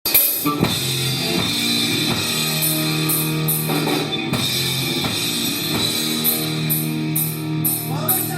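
Rock band music with drum kit and electric guitar: an instrumental intro with steady drum beats and held guitar chords.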